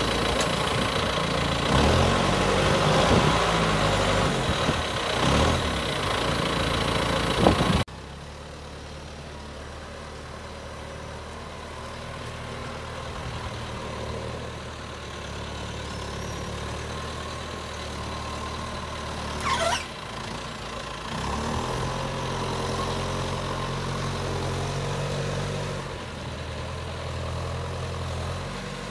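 John Deere 6430 tractor's diesel engine running close by, its revs rising and falling. About a quarter of the way in, the sound drops sharply to the same engine running more steadily from farther off. A single sharp clank comes past the middle, and then the engine revs rise as the front loader lifts a wrapped bale.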